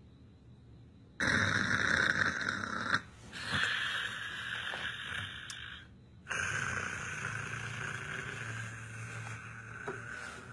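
Snoring: three long snores, the first starting about a second in, with short pauses between them.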